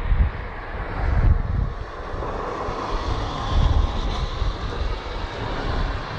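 Steady engine-like mechanical noise, with irregular low rumbling throughout.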